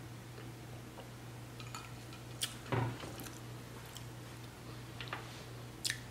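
A metal fork clicking and scraping against a plate a few times while eating, two clicks close together in the middle and two more near the end, over a steady low electrical hum.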